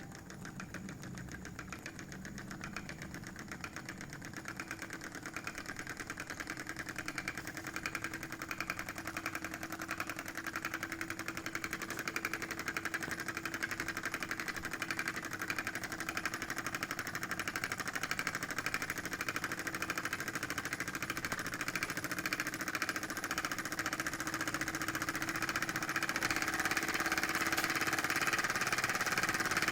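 Small Stirling engine kit running, driving a 5 V DC motor as a generator: a fast, even mechanical clatter that grows gradually louder.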